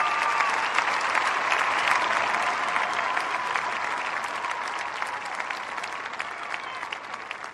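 Large audience applauding, a dense mass of clapping that slowly fades as it goes on.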